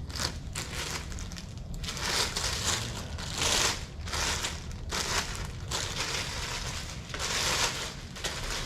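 Packaging wrapped around a fishing rod crinkling and rustling as it is handled, in about five bursts.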